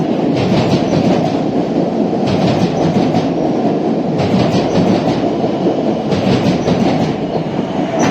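MBTA Orange Line subway train running on the rails: a loud steady rumble with groups of wheel clicks over rail joints coming about every two seconds.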